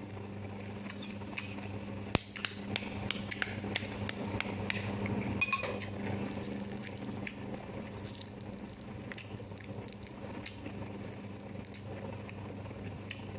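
A run of hard, sharp taps and clinks, about eight in quick succession starting a couple of seconds in, then a short cluster around the middle, over a steady low hum.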